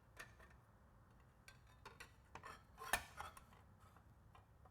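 Faint metallic clinks and taps as a saw blade is handled and fitted by hand under the lifted blade guard, the loudest about three seconds in.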